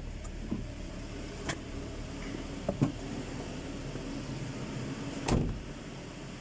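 Toyota Corolla engine running steadily with its new fuel pump, with a few light clicks and a louder thump about five seconds in.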